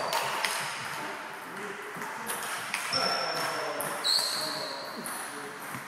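Scattered clicks and short high pings of table tennis balls striking tables and bats in a sports hall, over a murmur of voices.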